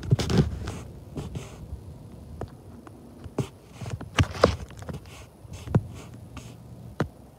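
Scattered crunches and clicks of footsteps shifting on dry gravel and dirt, with a faint low rumble underneath.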